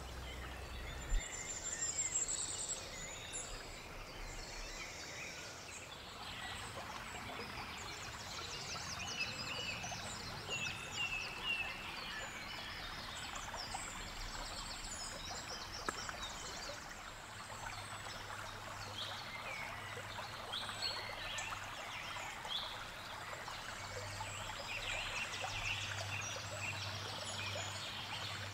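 Spring woodland bird chorus: many birds singing and calling throughout, over a steady faint hiss.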